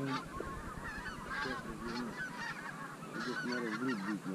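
A large flock of wild geese calling overhead: many overlapping honks and cackles without a break.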